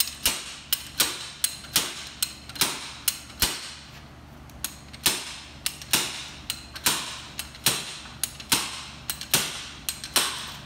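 Slide hammer on a three-jaw puller being yanked over and over, its weight clanking sharply against the end stop about two to three times a second, with a short pause about three and a half seconds in. The blows are driving an outer CV joint off its axle past the internal C-clip.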